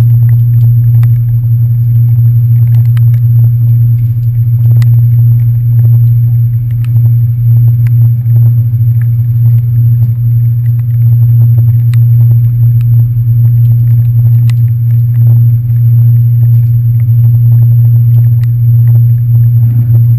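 Steady, loud low drone of a passenger ferry's diesel engines, carried through the deck, with scattered light ticks over it.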